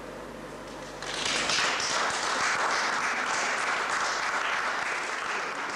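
Audience applauding. The applause breaks out suddenly about a second in and begins to fade near the end.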